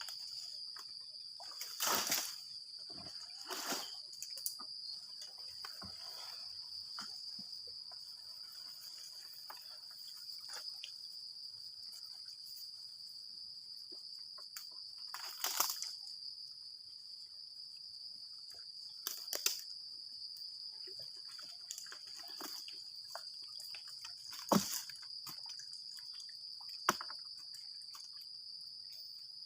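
Steady high-pitched drone of insects, with a handful of brief water splashes standing out above it, one about two seconds in, one near the middle and several in the last third.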